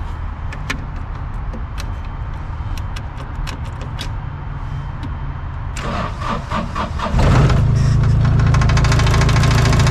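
A heavy-equipment engine is cranked over for about a second and catches about seven seconds in, then runs loudly and steadily. A lower, steady engine rumble with a few light clicks comes before it.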